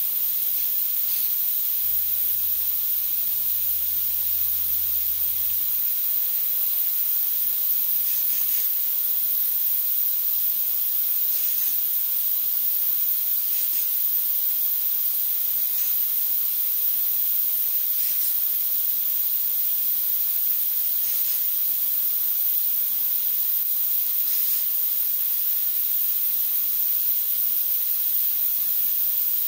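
A steady, high-pitched hiss with no change in level, with a few faint ticks.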